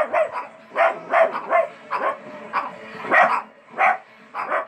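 A dog barking over and over in short, quick barks, about two or three a second.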